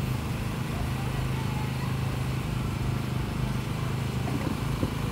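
A steady low engine hum, even in level throughout.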